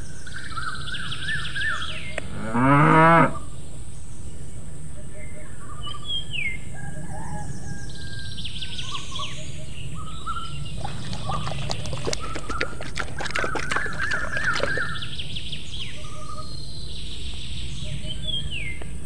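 A cow moos once, briefly, about two and a half seconds in; it is the loudest sound. Birds chirp and sing throughout.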